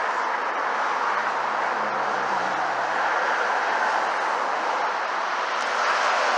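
Heavy road traffic passing close by: a steady rush of tyre and air noise from trucks going past, with a low engine hum under it for a couple of seconds. The rush swells again near the end.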